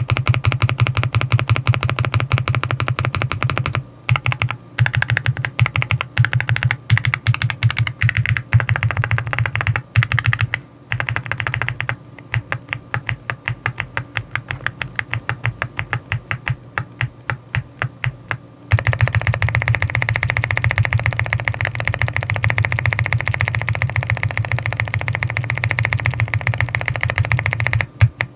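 Rainy75 aluminium mechanical keyboard being typed on fast, a dense run of keystrokes. In the middle the strokes slow to an even tapping of several a second, then the fast typing resumes.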